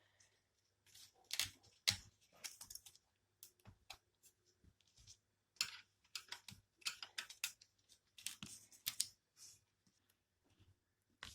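Hand work on an opened LCD computer monitor: irregular small clicks, snips and scrapes of tools and parts being handled, coming in quick clusters with short pauses.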